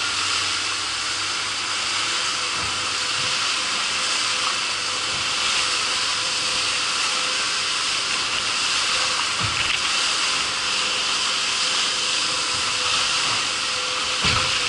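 Steady rushing hiss of a fast-moving boat's wake and spray churning behind the stern, with a faint steady drone of the boat's engine underneath. A few soft low thumps come through, about a third of the way in and again near the end.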